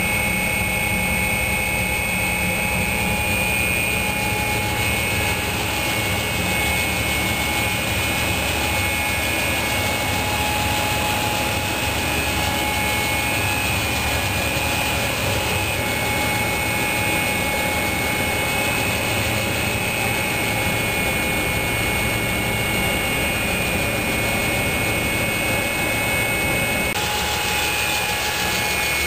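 Steady machinery drone with a constant high whine over a low hum.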